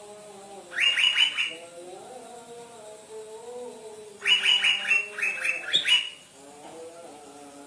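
Asian fairy-bluebird (cucak biru) calling: two bursts of rapid repeated notes, a short one about a second in and a longer one from about four to six seconds. Softer, lower tones run underneath throughout.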